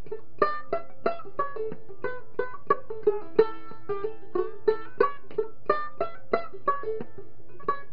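Tenor gourd banjo ukulele (17-inch scale) played clawhammer style in the key of A: a steady old-time melody of sharp plucked notes, about three or four a second, each ringing briefly.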